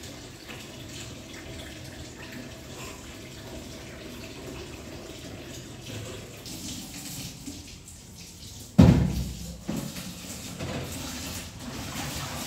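Kitchen tap running into a sink with washing-up sounds, the hiss of water stronger from about halfway through. A single loud knock comes about three-quarters of the way through, then a few lighter knocks.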